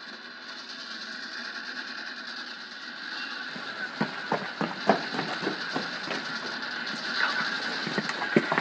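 A steady hiss, then from about three and a half seconds in an irregular run of sharp mechanical clicks and knocks.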